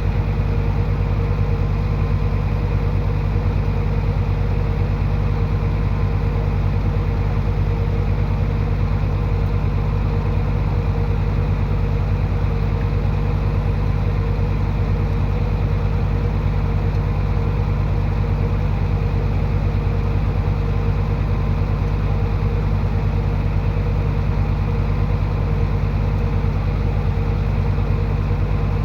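Heavy-equipment diesel engine running steadily without revving, a deep, even drone.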